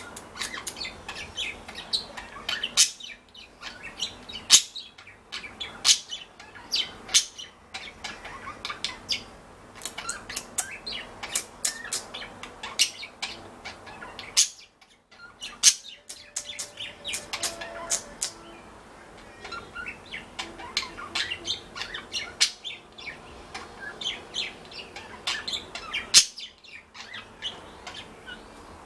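Pet budgerigars chirping and chattering in many short, sharp, high notes, with a few brief pauses.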